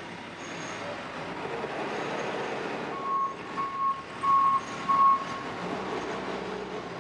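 Four beeps of a reversing alarm on construction machinery, one tone repeated about every two-thirds of a second and getting louder, over the steady rumble of site noise.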